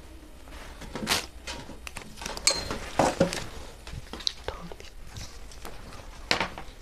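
Cloth being handled on a table: a string of short rustles and soft knocks as the pashmina fabric is shifted and smoothed out for measuring. The loudest come about one, three and six seconds in.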